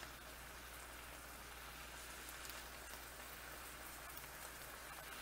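Diced onion, minced garlic and ground beef sizzling in olive oil in a nonstick frying pan: a faint, steady crackle as the onions sauté toward translucent.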